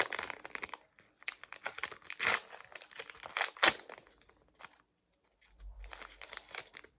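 Small plastic packaging pouches being crinkled and torn open by hand, in irregular crackly bursts, with a short quiet gap about five seconds in.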